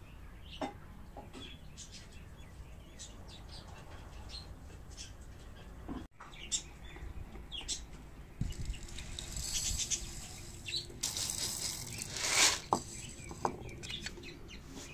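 Small birds chirping in short high calls for the first six seconds. After a sudden break, kitchen handling sounds: a few seconds of hissing rustle with knocks of pots and utensils, the loudest knock a little before the end.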